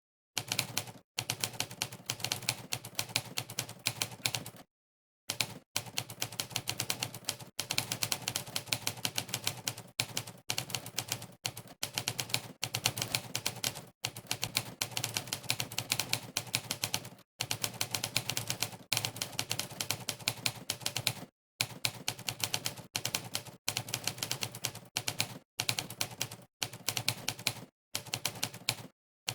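Monkeytype's 'typewriter' keystroke sound effect: a rapid run of typewriter key clacks, one for each key pressed in fast typing. The runs are broken by brief dead-silent pauses, the longest about five seconds in.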